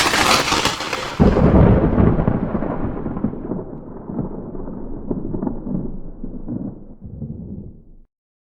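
Thunder sound effect: a sharp crackling clap already sounding, then a heavy low rumble about a second in that rolls on and slowly fades over several seconds before ending abruptly near the end.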